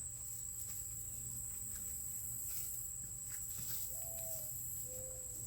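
A steady high-pitched insect drone, with faint scattered rustles of straw and soil as potatoes are dug out by hand.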